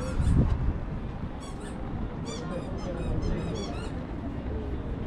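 Runs of short, high-pitched chirps about one and a half to four seconds in, over a steady low rumble of street background.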